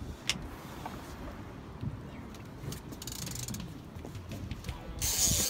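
Fishing reel clicking and ratcheting as a hooked shark is played on a taut line, with a few sharp clicks and two short bursts of hiss about three and five seconds in.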